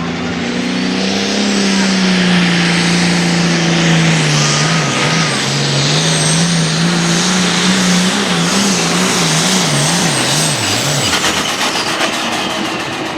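Diesel engine of a hot farm pulling tractor running at full power under load as it pulls the sled. The engine's pitch climbs in the first two seconds, wavers rapidly up and down from about eight seconds in, then falls away near the end.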